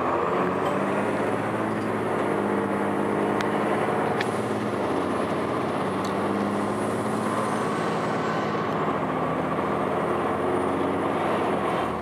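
Cummins ISC diesel engine and Allison automatic transmission of a 2002 Blue Bird CS transit bus, heard from inside the passenger cabin while under way: a steady drone that shifts a little in pitch, with a faint high whine over it and a few brief rattles.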